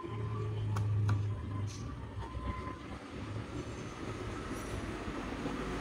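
Two sharp clicks about a second in as a SATA SSD is pushed onto its connector in a laptop's drive bay, over a low rumbling hum that is strongest in the first second and a half.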